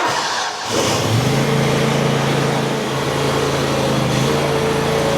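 Grasshopper front-mount mower's engine starting up, settling into a steady run about a second in.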